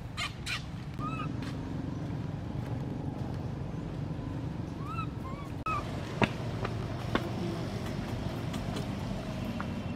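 Infant macaque giving a few short high squeaks, each rising and falling in pitch: one about a second in, then a quick pair around the middle and one more soon after, over a steady low background rumble.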